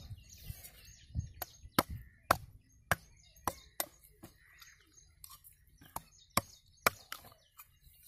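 Machete blade chopping into the husk of a green tender coconut: a dozen or so sharp strikes, irregularly spaced about one or two a second, as the top is trimmed open.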